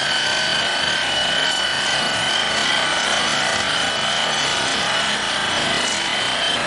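A machine running steadily, with a high steady whine over a rough, grinding noise that does not change.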